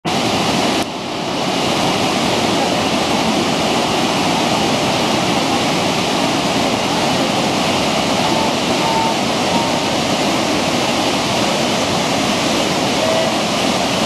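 Sogi Falls on the Sendai River rushing over a weir and through a rocky gorge, a steady, loud wash of whitewater. The level dips briefly about a second in.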